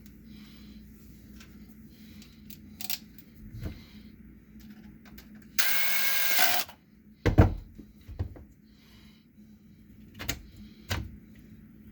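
Clicks and knocks of hammer drill parts being handled during gearbox repair. About halfway there is a steady hissing burst lasting about a second, then a heavy thud, the loudest sound.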